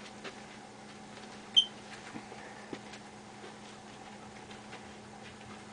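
Quiet room tone with a steady low electrical hum and scattered faint ticks. One short, sharp, bright click comes about a second and a half in.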